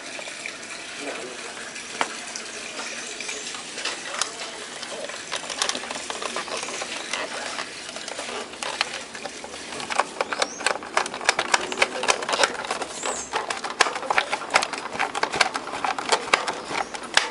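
A hand screwdriver driving a screw into the plastic cabinet of a Toshiba TR 6117 BT CD radio. Scattered small clicks and scrapes come first, then from about ten seconds in a dense run of quick sharp clicks.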